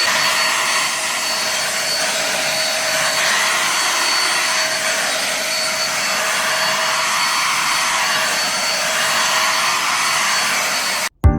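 Vacuum cleaner running steadily with a constant whine, cutting off suddenly near the end.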